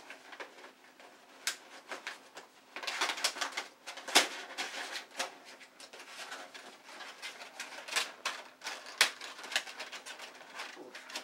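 Stiff drafting-vellum panels of a paper lampshade rustling and crinkling as the shade is handled and a lamp cord is worked inside it, with scattered sharp clicks and taps.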